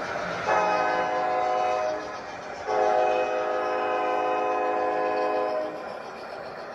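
Sound system of a large-scale model diesel locomotive blowing its horn: a short blast, then a longer one of about three seconds, each a steady multi-note chord.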